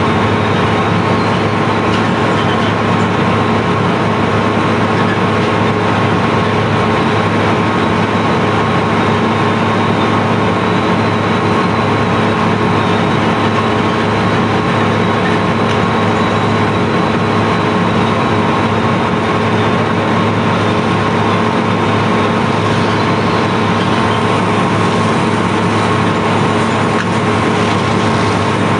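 Steady drone of a sand barge's unloading machinery running continuously, an engine-like hum with several steady tones.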